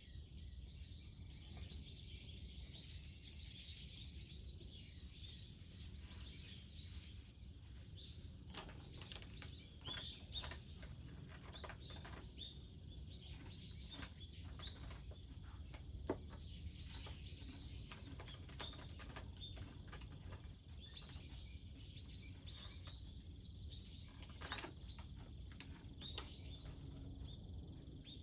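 Birds chirping, busiest in the first few seconds and again near the end, over a steady low background rumble, with scattered sharp clicks mostly in the middle.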